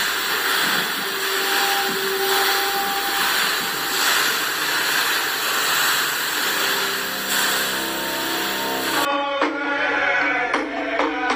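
Steady rushing of water pouring down a large curved waterfall fountain wall. About nine seconds in it cuts abruptly to a group of men chanting to frame-drum beats.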